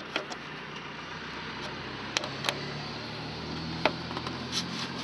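A few short, sharp plastic clicks and taps as the tail light cluster's wiring connector is handled and its release tab pressed to unplug it, over a steady low hum.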